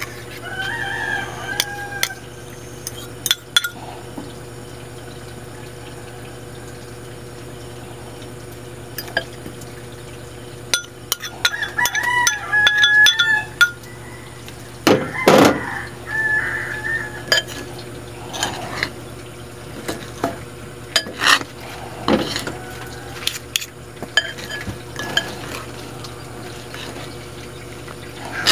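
Metal fork and spoon clinking and scraping against ceramic bowls as beaten egg is mixed into flour-coated mushrooms. Sharp clinks come throughout, with a louder clatter about fifteen seconds in. A few short high calls sound in the background.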